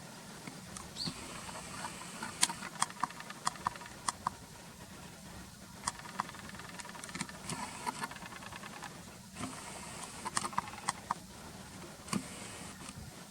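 Irregular light clicks and ticks, a few a second in clusters, over a faint steady low hum.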